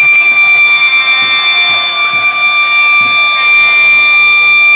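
A loud, steady, high-pitched horn tone held without a break, with shouting voices faintly underneath.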